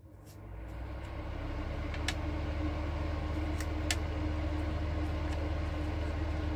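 A steady low machine hum with a faint higher tone fades in over the first second and then holds. A few short clicks sound over it as a cat licks yogurt off a foil cup lid.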